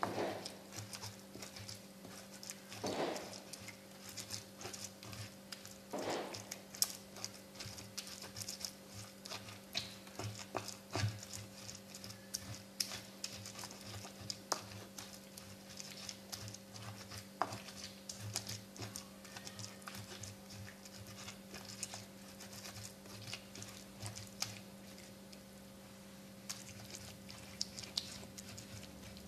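Pestle (ulekan) grinding and pounding sambal of fried chilies, tomatoes and shallots in a cobek mortar: irregular scrapes and small knocks as the paste is worked smooth, over a steady low hum.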